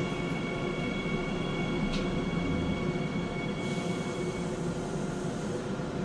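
Subway train slowing to a stop at a station, heard from inside the car: steady running rumble with a high electric whine that fades out about three-quarters of the way through as the train comes to rest.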